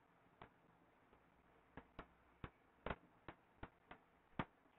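Faint, irregularly spaced clicks, about two a second: a stylus tapping on a pen tablet as words are handwritten.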